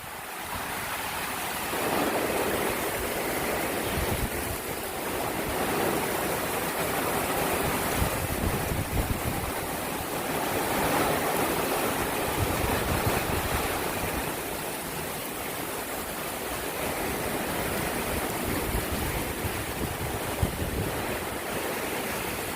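Gusty wind of a tornadic thunderstorm, a steady rushing noise that swells and eases every few seconds, buffeting the microphone.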